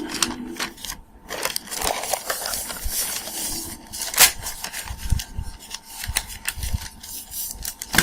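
Close handling noises: irregular scrapes, clicks and crinkling, with a sharper click about four seconds in.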